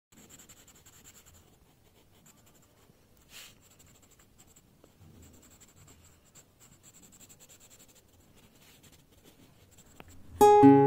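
Pencil scratching on sketch paper in short, quiet runs of shading strokes. Near the end, loud music with sharply struck notes starts.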